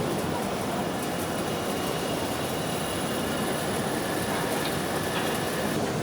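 Basket mill running: steady mechanical noise of its motor and milling head, with a faint high whine over it.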